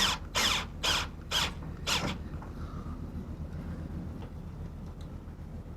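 Rhythmic rasping strokes of a hand tool worked back and forth, about two a second, stopping about two seconds in.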